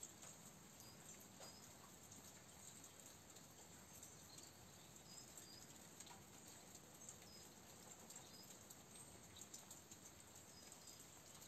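Near silence: faint room tone with scattered, faint, high, short chirps, like distant small birds, and a few light ticks.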